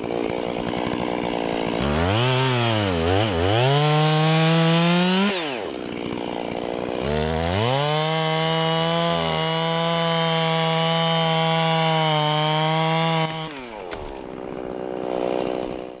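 Two-stroke chainsaw running at high revs while cutting through a felled fir log. Its pitch climbs and dips twice, drops off briefly about five seconds in, then holds steady at full throttle for about six seconds before easing off near the end.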